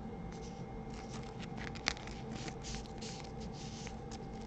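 A trading card being slid into a clear plastic sleeve and top loader: a run of faint plastic rustles and scrapes, with one sharp click about two seconds in.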